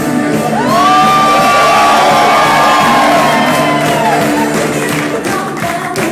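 Upbeat dance music playing, with a group of people whooping and cheering loudly over it from about half a second in until about four seconds in.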